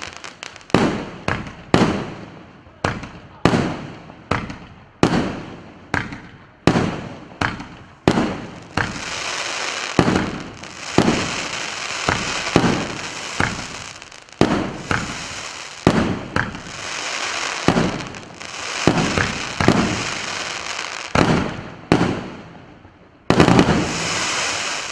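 A 49-shot, 2-inch consumer fireworks cake firing: a rapid series of sharp bangs, each fading quickly, at first almost one a second. In two long stretches the reports run together into a continuous rush of crackling noise. A sudden loud burst comes near the end.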